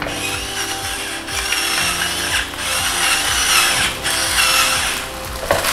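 Electric stainless-steel pepper mill grinding peppercorns over the pan, its small motor running in three runs of about a second each with short breaks between.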